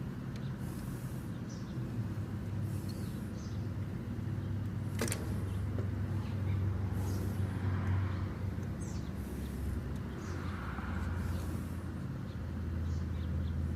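Steady low mechanical hum with a single sharp click about five seconds in.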